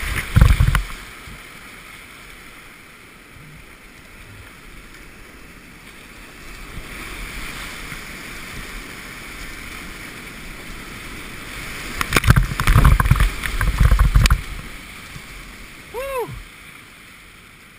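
Whitewater rapids rushing steadily around a kayak, broken by loud splashes and thuds as waves crash over the bow and onto the camera, at the very start and again in a heavy stretch about twelve to fourteen seconds in.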